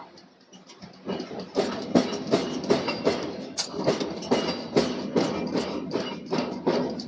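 Hammer blows on steel in a steady rhythm, about two to three strikes a second, each with a short metallic ring, starting about a second in.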